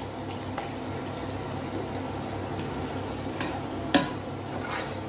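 Wooden spatula stirring tofu and vegetables in a pot over a steady low sizzle from the pan, with light scraping clicks and one sharp knock of the spatula against the pot about four seconds in.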